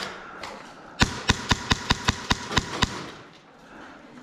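Airsoft gun firing a quick string of about nine sharp shots in under two seconds, starting about a second in.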